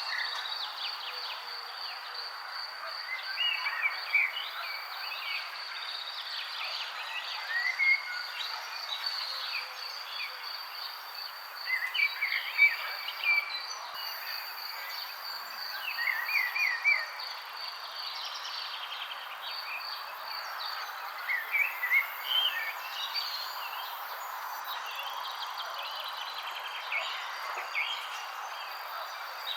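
Birds chirping in short, scattered calls over the steady, even pulsing trill of an insect, with a constant soft hiss of outdoor background noise beneath.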